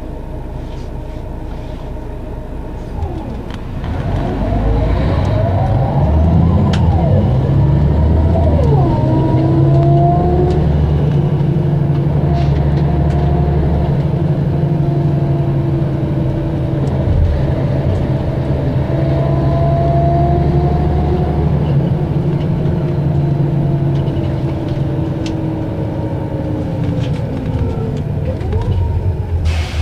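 Mercedes-Benz O 550 Integro bus's diesel engine running. About four seconds in it rises in speed with gliding pitch, then holds a higher steady hum before slowly easing back, with another brief change in pitch near the end.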